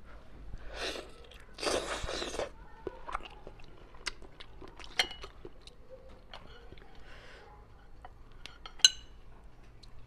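Close-miked eating sounds of cooked conch meat: two short, noisy bursts of biting and chewing in the first few seconds, then scattered sharp clicks and small wet handling noises as the meat is pulled apart by hand and held with chopsticks, with one sharp click near the end.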